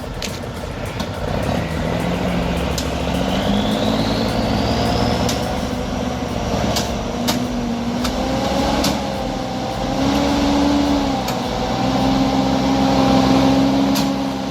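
Heavy logging truck's diesel engine working under load, its pitch stepping up several times, with a faint high whine rising over the first few seconds and scattered sharp ticks.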